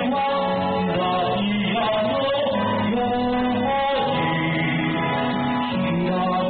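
A man singing into a karaoke microphone over a backing track with guitar.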